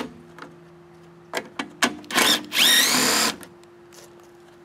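Cordless drill/driver backing out the top-cover screws on a lawnmower engine: a few clicks, then two short runs of the motor spinning up with a rising whine about two seconds in.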